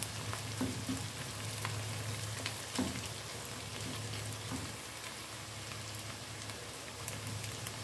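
Chopped onions sizzling in hot oil in a coated frying pan as they cook toward browning. A silicone spatula stirs them, giving small scrapes and taps.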